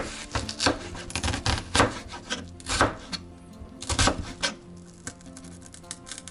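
Chef's knife slicing through a peeled onion and knocking on a plastic cutting board in irregular strokes, thinning out and growing softer near the end. Background music plays underneath.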